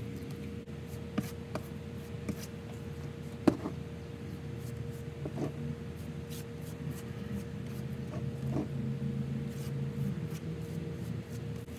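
Tint brush strokes spreading bleach through a hair bundle and gloved hands handling hair on a tabletop: soft scratchy brushing and rubbing with a few light taps, one sharper knock about three and a half seconds in. Under it runs a steady mechanical hum.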